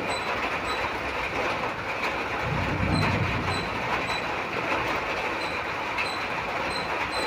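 Steady downpour of rain making an even hiss, with faint short high chirps repeating through it and a brief low swell about three seconds in.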